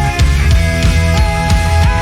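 Heavy rock band playing an instrumental passage: distorted electric guitars holding sustained notes over driving drums and bass.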